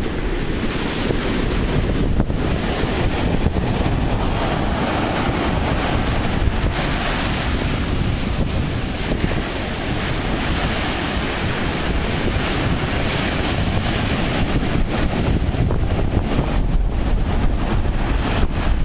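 Rough storm-driven ocean surf breaking and washing up the beach, with gusty wind buffeting the microphone.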